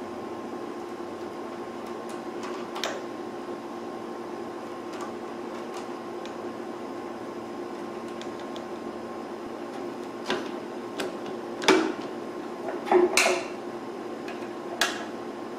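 Steel roller chain and sprockets on a thickness planer's feed drive being handled and fitted by hand: a handful of light metallic clinks, most of them in the last third. A steady hum sits under them throughout.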